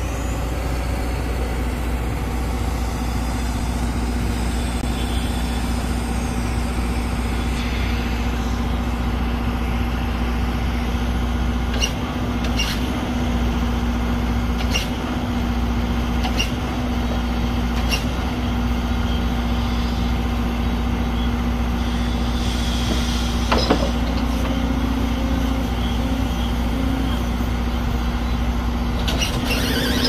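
Hydraulic excavator carrying a vibratory pile driver, running with a steady low drone and a constant mid-pitched hum, with a few faint clicks partway through.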